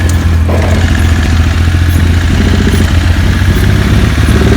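A single-cylinder motor vehicle engine running steadily at low revs during an attempt to bump-start a KTM 450 quad. The quad's engine does not fire.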